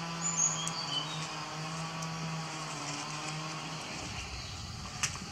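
A motor engine running at a steady pitch, stopping about four seconds in. Faint bird chirps sound near the start.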